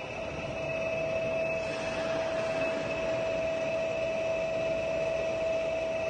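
Giana heavy-duty lathe running with its spindle at the lowest speed, 6 rpm: a steady mechanical hum with a constant high whine, growing slightly louder about a second in.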